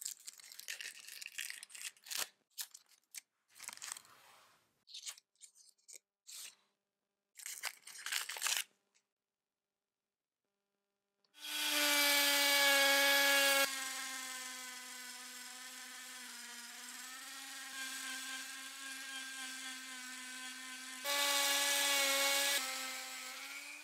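Irregular scraping and rubbing strokes. After a short pause, a small power tool's motor runs with a steady whine for about twelve seconds, getting louder twice for a second or two.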